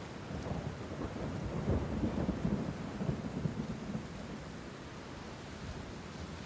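Steady rain with a low rumble of thunder that swells about two seconds in and then eases back to the rain.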